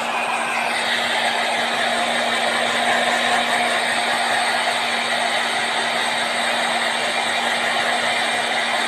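Handheld hair dryer blowing steadily: a constant rush of air with a steady low hum beneath it.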